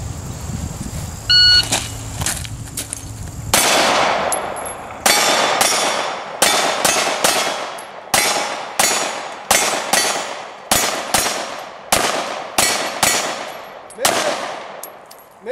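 A short electronic beep about a second and a half in, then a handgun fired steadily at steel plate targets, about one shot every two-thirds of a second, each shot followed by the ringing clang of steel.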